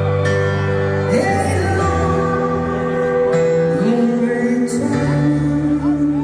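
Live rock band's slow keyboard-and-vocal ballad: held keyboard chords under a male lead vocal sliding between long sung notes, played through an arena PA.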